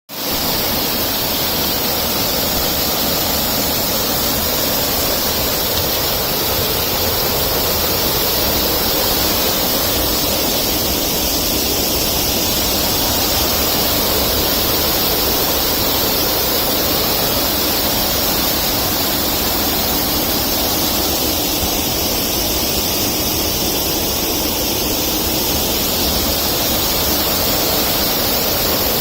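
Waterfall rushing: loud, steady roar of falling water.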